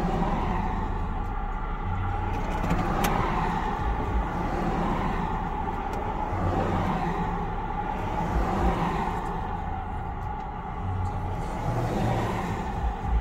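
Road traffic on a highway heard through a vehicle's windshield: cars passing one after another, each swelling and fading, over a steady low rumble.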